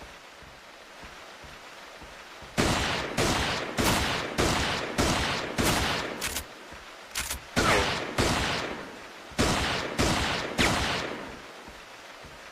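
Revolver gunshot sound effect: about eleven shots, first a run of six roughly 0.6 s apart, then a couple of light clicks, two more shots, a short pause and a final three, each shot with a fading echo tail.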